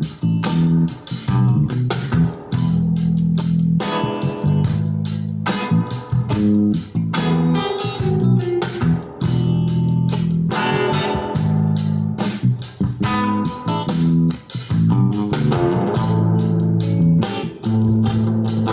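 A guitar-led song with bass and a steady drum beat, played through a speaker driven by a homemade class A MOSFET amplifier (IRF3205 transistors).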